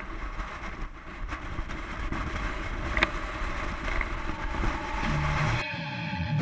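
Wind buffeting the microphone of a bike-mounted camera, over the rumble of a road bike's tyres on the climb, slowly growing louder. One sharp click comes about three seconds in, and the sound changes abruptly near the end.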